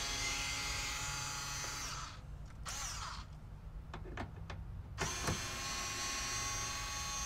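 Hart cordless screwdriver running with a steady whine, spinning out small 5.5 mm bumper-cover bolts. It stops about two seconds in, a few light clicks follow, and it starts again about five seconds in and keeps running.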